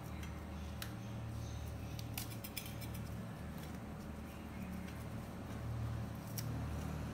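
Hibiscus petals being pulled off and dropped into a stainless steel pot: a few scattered light clicks and ticks over a steady low hum.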